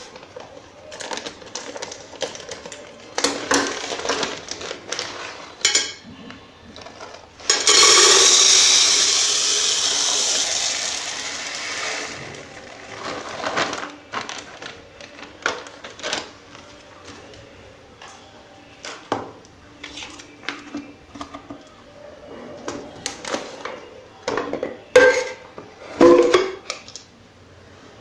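Plastic bags crinkling and scissors snipping, then dry seeds poured from a bag into an empty Pringles cardboard tube: a loud rushing rattle for about four seconds that slowly tails off. More bag rustling and small clicks follow, with two sharper knocks near the end as a tube is set down on the counter.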